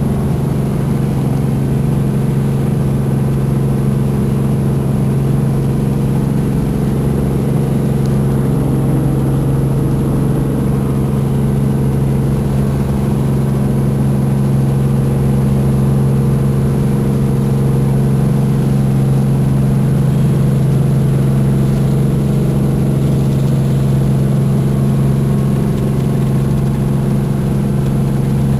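Helicopter running steadily: a loud, even drone with a strong low hum that does not change.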